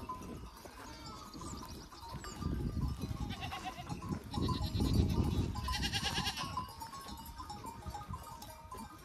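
Goats bleating, a few calls in the middle, over a low rumbling noise.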